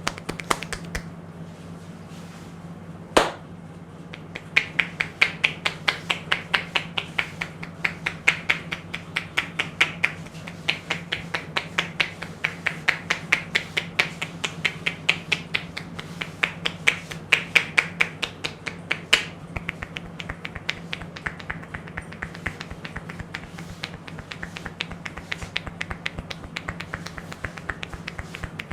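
Indian barber's hair cracking: rapid dry snaps, about three or four a second, as strands of hair are snapped between the fingers, with one louder single crack about three seconds in. A low steady hum runs beneath.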